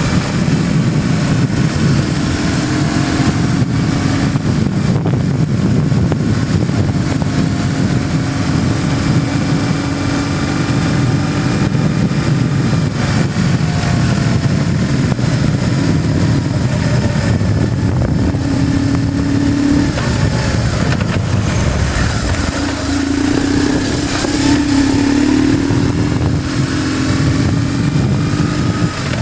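BMW GS motorcycle engine running while riding, its note rising and falling with the throttle, most strongly near the end.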